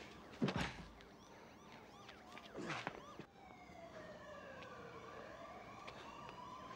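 A sharp, heavy thump about half a second in and another loud hit around two and a half seconds in. From about three seconds in a siren wails, its pitch sliding down and then climbing back up and holding.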